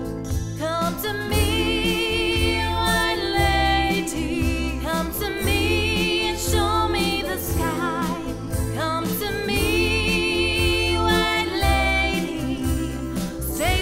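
A woman singing, her held notes wavering with vibrato, over instrumental backing with a deep bass line.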